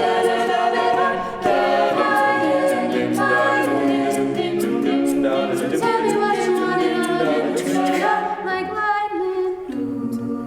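A cappella vocal group singing layered chords in harmony, the voices shifting together every second or so over a steady percussive beat.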